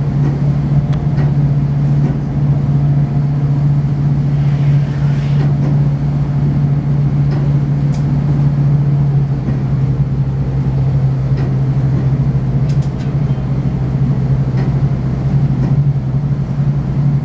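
Steady low drone of the tour boat's engine, heard on board.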